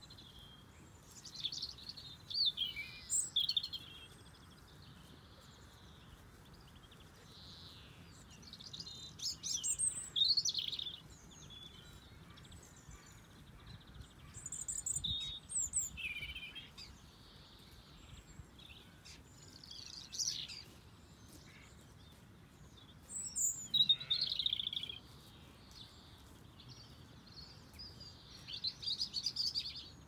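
Songbirds singing in short, high phrases that come and go every few seconds, about six of them, over a faint steady background.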